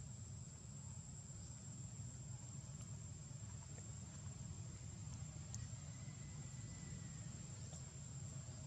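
Quiet outdoor ambience: a steady high-pitched insect drone over a low rumble, with a few faint ticks.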